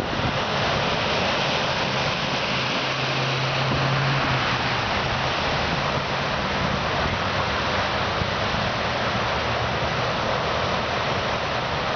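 Cars and a pickup truck driving through deep floodwater, their tyres pushing and splashing water in a steady rushing wash. A low engine hum stands out briefly about three to four seconds in.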